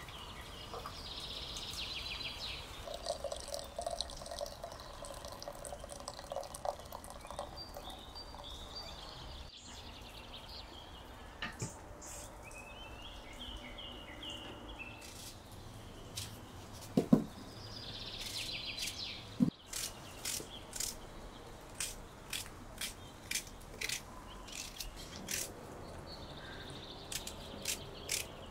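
Birds chirping at intervals in the background, with a couple of heavier knocks past the middle and then a run of sharp clicks, roughly one a second, near the end.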